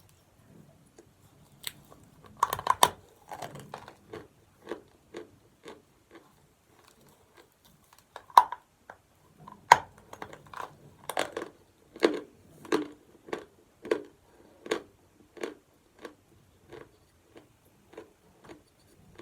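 A person biting and chewing chalk: a few sharp crunching bites, then regular chewing about one and a half times a second.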